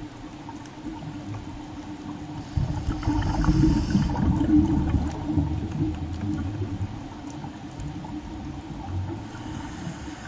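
Underwater audio with a steady low hum, swelling about two and a half seconds in into a couple of seconds of louder gurgling bubble noise, typical of a scuba diver exhaling through a regulator.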